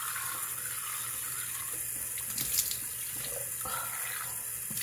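Bathroom tap running steadily into a sink while cream is rinsed off the face, with a few brief splashes about halfway through.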